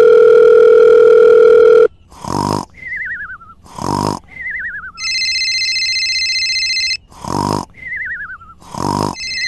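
Comic sound effects: a loud steady beep for about two seconds, then four short comic vocal noises alternating with descending warbling whistles, with a steady electronic phone-like ringing tone for about two seconds in the middle.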